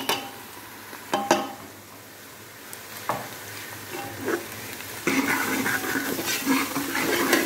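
Onions frying in oil in an aluminium pot, sizzling as spices are tipped in, with a few sharp knocks of the ladle and plate against the pot. From about five seconds in, a metal ladle stirs and scrapes the mixture around the pot, louder.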